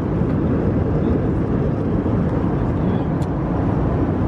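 Steady airliner cabin noise in flight: an even rush of air and engine noise heard from inside the cabin.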